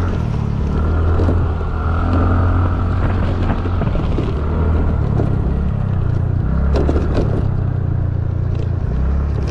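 Small motor scooter engine running under throttle over rough grass, its pitch stepping up and down with the throttle, over steady wind noise. Short clattering knocks come as it hits bumps, the most about seven seconds in.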